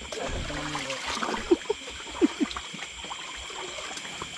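Water trickling, with four short squeaky cries near the middle, in two quick pairs.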